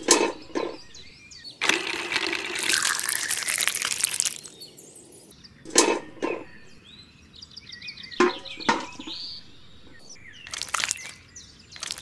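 Sharp taps and knocks of a small tin bucket being set down and handled on gritty ground, with a rush of noise lasting a couple of seconds early on and birds chirping faintly in the background.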